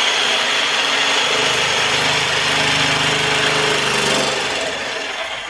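Jigsaw cutting through an ebony fingerboard blank, the blade running steadily through the wood; the saw winds down near the end as the cut finishes.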